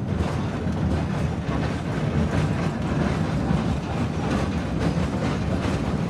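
Wooden heritage railway passenger carriage rolling along the track, heard from inside: a steady rumble of wheels on rails with faint occasional clicks.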